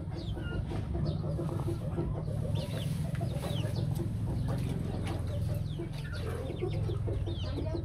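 A pen of young chickens calling throughout: many short, falling high peeps mixed with lower clucks, over a steady low hum.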